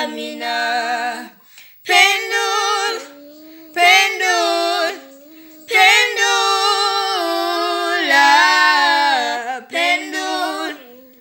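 A woman and a girl singing together unaccompanied, in sung phrases with short breaks, the longest held from about six seconds in to nearly ten.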